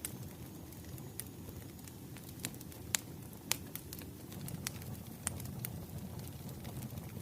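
Burning firewood crackling: a steady low rumble of flames with irregular sharp pops and snaps, the loudest a pair about three seconds in.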